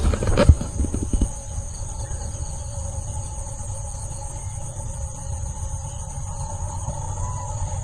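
A few footsteps through dry rice stubble at the start, then a steady insect chorus of several unbroken chirring tones, some high and some lower, over a low rumble.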